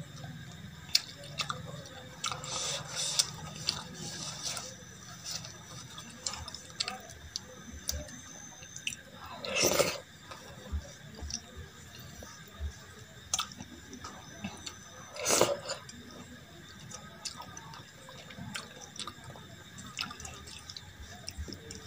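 Wet eating sounds of dal and rice eaten by hand: fingers squelching the rice and dal together on a steel plate, with lip smacks and chewing clicks. Two louder wet mouthfuls come about ten and fifteen seconds in.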